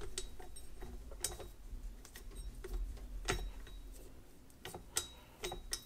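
Scattered light clicks and soft taps at irregular intervals, a few a little sharper, from hands handling the kneaded pizza dough and the kitchen things around it. The stand mixer is not running.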